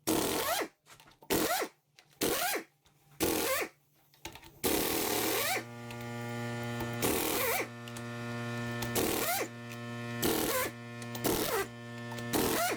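Impact wrench spinning up in short bursts, about one a second, as the cylinder head bolts are broken loose. From about five seconds in, a steady droning machine hum runs underneath and slowly grows louder.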